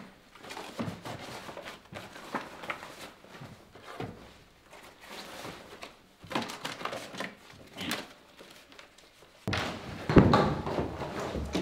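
Hurried rummaging through papers in a desk drawer: irregular rustling and clattering knocks. About ten seconds in, a door is pushed open with a loud bang.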